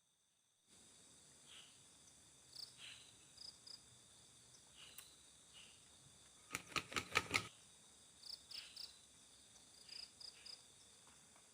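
Crickets and other night insects chirping faintly, with a steady high trill and short chirps scattered throughout. A quick run of about six sharp clicks comes a little past halfway.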